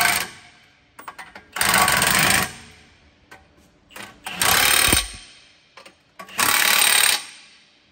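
Impact wrench tightening the nuts on a track tractor's idler wheel hub, hammering in three short runs of under a second each with pauses between.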